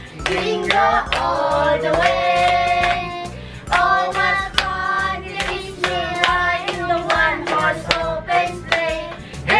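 A family, children and adults together, singing a Christmas carol while clapping their hands in rhythm.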